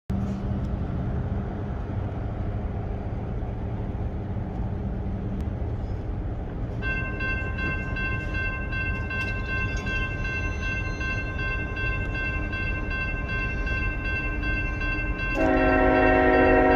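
A steady low rumble, then about 7 seconds in the grade-crossing warning bell starts ringing as the crossing signals activate. Near the end, the approaching Union Pacific freight locomotive's horn sounds loudly over the bell.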